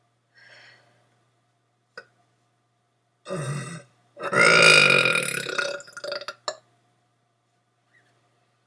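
A person's deliberate burps: a short burp about three seconds in, then a long, loud belch lasting about two seconds that breaks up into stutters at its end.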